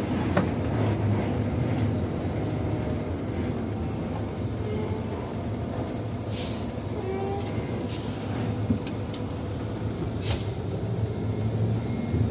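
Intercity coach bus on the move: a steady rumble of engine and road noise, with a few sharp ticks and short faint squeaks from the body about halfway through and near the end.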